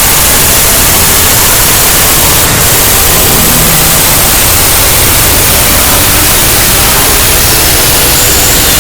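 Very loud, steady static-like noise that fills every pitch from deep bass to the highest treble, heavily distorted, with no break. A thin, high steady tone comes in near the end.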